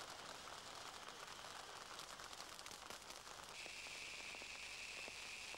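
Fireworks and firecrackers crackling: many small pops over a steady hiss, with a steady high whistle joining about three and a half seconds in.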